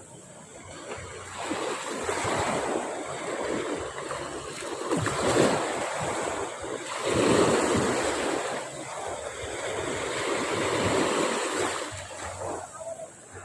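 Sea waves breaking and washing up a beach. The surf swells from a lull to its loudest around the middle, then ebbs away near the end.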